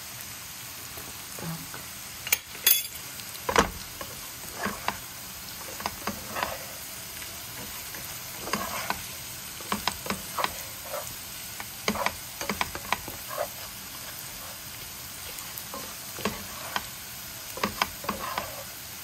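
Beef cubes frying in a nonstick pan with a steady sizzle, while a slotted spatula stirs and scrapes through them, making frequent short scrapes and taps against the pan. Flour is being stirred into the hot fat and browned with the meat to thicken the gravy.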